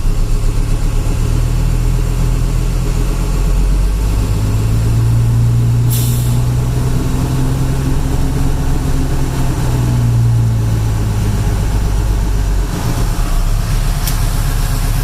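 Grain truck's engine running under PTO load, driving the hydraulic hoist that raises the dump box. The engine note rises about four seconds in, holds, and drops back near the end, with a short hiss about six seconds in.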